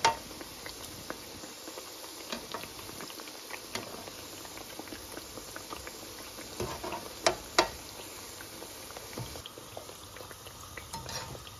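Sweet semolina-and-flour tikiyan deep-frying in ghee and oil in a steel karahi over medium-to-low heat: a steady bubbling sizzle dotted with small pops. Two sharper clicks come about seven seconds in.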